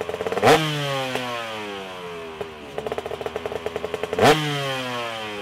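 Motorcycle engine revved sharply twice, about four seconds apart, the revs falling away after each blip. A fast ticking idle quickens before the second rev.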